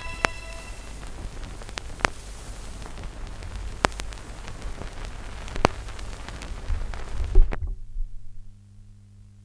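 A held orchestral note dies away in the first moment, leaving the surface noise of a 33⅓ rpm vinyl LP: steady crackle with sharp clicks and pops over a low rumble. About seven and a half seconds in there is a low thump, and the record noise cuts off suddenly, leaving only a faint steady low hum.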